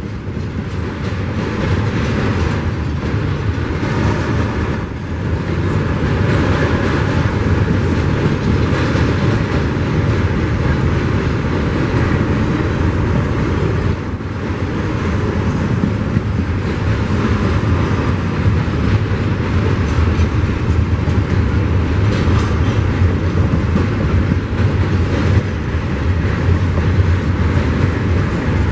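Double-stack container train's well cars rolling past: a steady, loud rumble of steel wheels on rail with intermittent clatter from the wheelsets.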